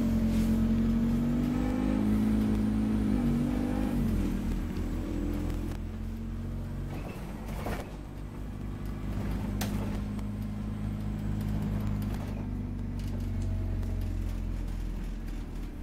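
Scania OmniCity N230UD double-decker bus's five-cylinder diesel engine pulling away, heard from the upper deck, a low drone with a pitched note that climbs and then drops about four seconds in before settling steadier. Two sharp knocks or rattles come a couple of seconds apart around the middle.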